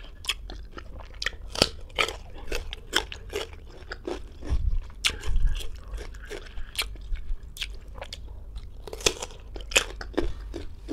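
Close-miked crunching and chewing of firm, unripe green ambarella fruit dipped in shrimp paste: a run of irregular crisp crunches, a few of them louder.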